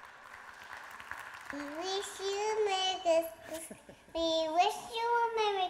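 A small child singing in a high voice: a few drawn-out, wavering notes that begin about a second and a half in, with a short break near the middle. It is a video soundtrack played over loudspeakers.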